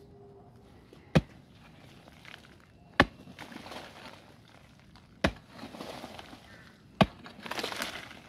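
A digging tool striking the hard earth of a termite mound four times, about every two seconds, each sharp blow followed by a brief patter of loosened soil crumbling away.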